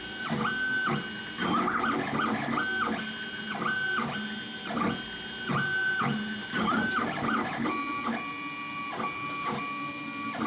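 3D printer running, its stepper motors whining as the axes move. The pitch jumps between a few steady tones roughly once a second, then settles into one lower steady whine for the last few seconds.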